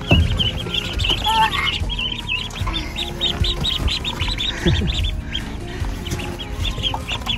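Khaki Campbell ducklings peeping: a constant run of short, high peeps, several a second, with a few low bumps, the loudest just at the start.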